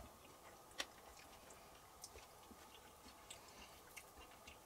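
Near silence with scattered faint clicks of forks against a frying pan and metal bowls during a meal, the clearest one under a second in.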